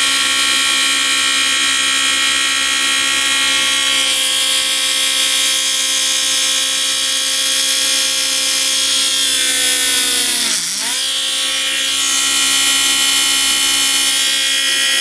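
Small handheld rotary tool (a mini Dremel-type drill) running with a steady high whine while drilling a hole through a baked polymer clay bead. About ten and a half seconds in, its pitch drops sharply and climbs straight back up.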